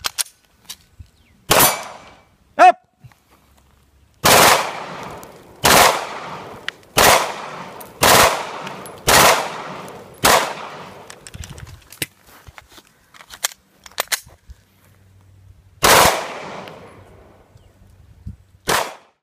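9 mm Glock pistol firing single shots, nine in all. The pattern is one shot, a pause, six in a steady run about a second apart, a longer pause, then two more a few seconds apart. A very loud, brief warbling tone sounds about a second after the first shot.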